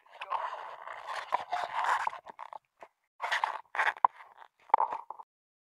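Irregular crunching and scraping, like footsteps on beach sand and gravel mixed with rubbing on the handheld camera. It stops a little after five seconds.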